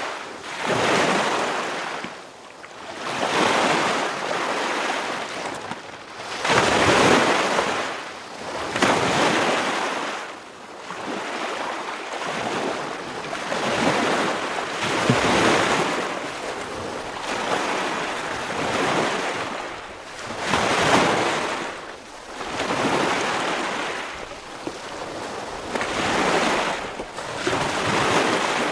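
Ocean waves breaking on a beach, each surge swelling and falling back every few seconds in an uneven rhythm.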